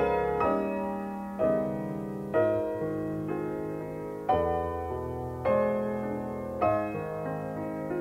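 Background piano music: a slow piece with chords struck about once a second, each left to ring and fade.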